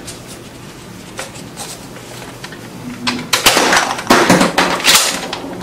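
Plastic toy soft-dart blaster being handled and loaded with foam darts, a few faint clicks, then a run of loud sharp clacks and knocks a little past halfway as it is fired.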